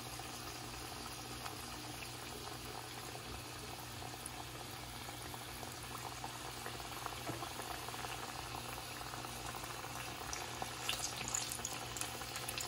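Onion fritters in gram-flour batter deep-frying in hot oil in a cast-iron kadai: a steady bubbling sizzle. Near the end the crackling grows louder as more batter is dropped into the oil.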